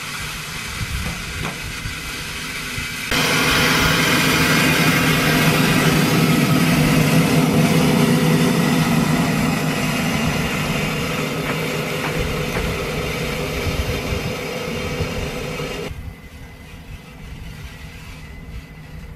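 Ride-on scale locomotive pushing a wedge snow plow through ice-crusted snow, making a loud, steady grinding and crunching noise with the locomotive running underneath. The noise jumps up sharply about three seconds in and drops to a fainter, more distant running sound about three seconds before the end.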